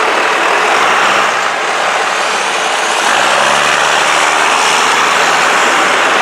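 Massey Ferguson loader tractor's diesel engine running close by, a steady loud drone that grows a little louder about three seconds in.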